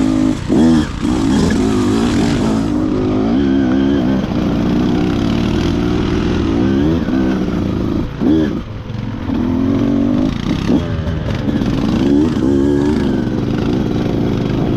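Beta 200RR two-stroke single-cylinder dirt bike engine being ridden, its revs rising and falling constantly as the throttle is worked, with brief drops in revs about half a second, eight and ten and a half seconds in.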